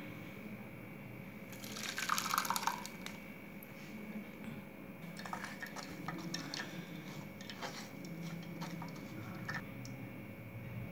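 Blended pomegranate juice poured from a stainless steel mixer jar into a plastic mesh strainer, splashing for about a second and a half. Then a wooden spatula scrapes and presses the pulp against the mesh, with scattered light scrapes and taps.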